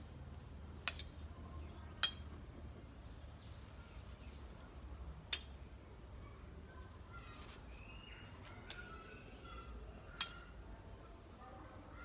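Four sharp snips as leafy vine stems are cut with scissors, at irregular intervals, over a low steady background hum.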